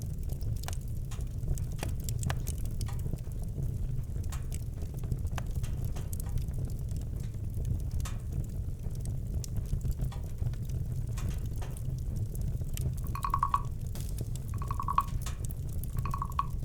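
Campfire crackling and popping over a low rumble. Near the end, three short, evenly spaced calls of some animal sound about a second and a half apart.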